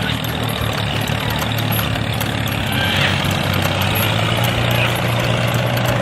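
Steady low engine hum of a mini construction vehicle, like a heavy engine idling, growing a little louder about two seconds in.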